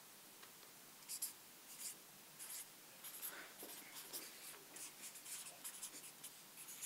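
Pens scratching on paper on clipboards as two people write. The faint, irregular strokes start about a second in and keep going.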